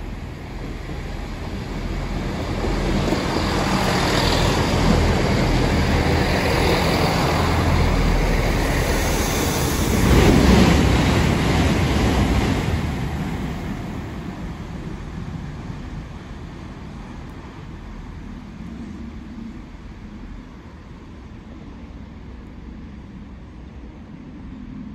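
Class 166 Networker Turbo diesel multiple unit running through without stopping: its diesel engines and wheels on the rails grow louder over the first few seconds, peak about ten seconds in as it passes close, then fade steadily as it draws away.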